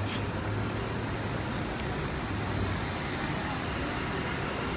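City street traffic running steadily, with a low engine hum during the first few seconds.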